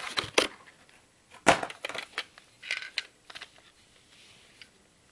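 Stiff clear plastic toy packaging crackling and crunching as it is handled and pulled apart, in irregular bursts, the loudest about a second and a half in.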